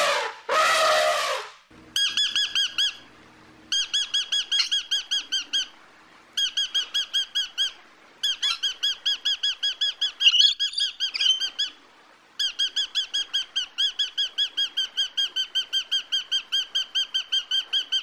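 An African elephant gives a short trumpet call, then a rainbow lorikeet chatters in rapid squeaky notes, about seven a second. The notes come in runs of one to two seconds with short gaps, and one longer unbroken run near the end.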